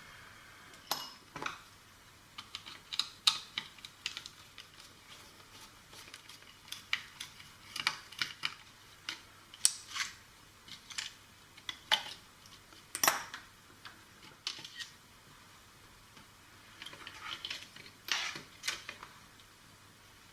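Irregular clicks, taps and light plastic clatter from a toy walkie-talkie's plastic casing and small parts being handled and opened during disassembly, with a short quieter pause a few seconds before the end.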